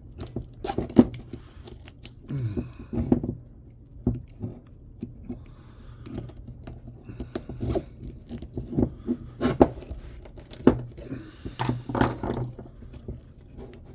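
Copper windings being cut and pried out of an electric motor with a screwdriver and wire cutters: irregular sharp clicks, scrapes and tearing crunches of metal and wire.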